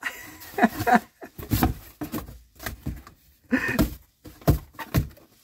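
Cardboard box being knocked and scraped: irregular dull thumps and rustling scrapes as a hand presses and rubs its flap and a cat inside moves against it.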